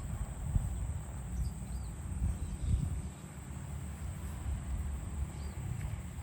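Outdoor rural ambience: an irregular low rumble, with a steady high insect drone and a few faint bird chirps.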